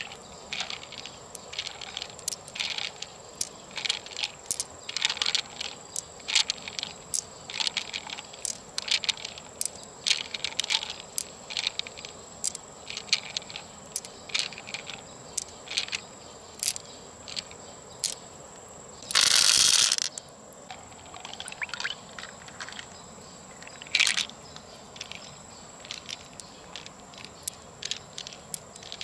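Fingers working through the wet flesh of an opened freshwater mussel, picking out pearls: a run of small wet clicks and ticks, with pearls clicking together in the palm. A louder noisy burst lasting about a second comes about two-thirds of the way in, and a steady high-pitched tone runs underneath.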